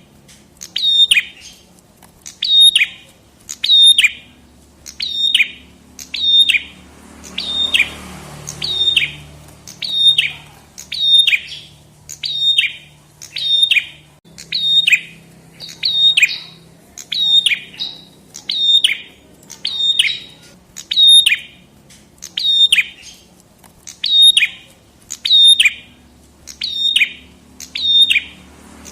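Prenjak kepala merah (a small prinia-type songbird) calling, repeating one sharp high chirp that sweeps downward, about once a second, all alike.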